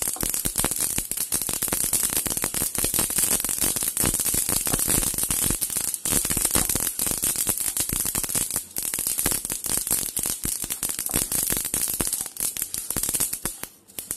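White sesame seeds popping and crackling as they dry-roast in a hot pan without oil: a dense, rapid patter of tiny pops that thins out near the end. The popping shows the seeds are roasting through.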